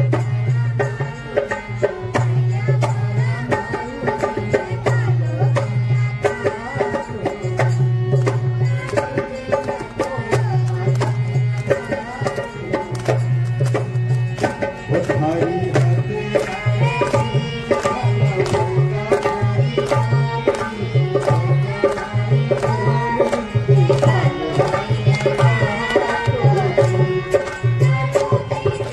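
Indian folk dance music with a steady, driving hand-drum beat under a wavering melody.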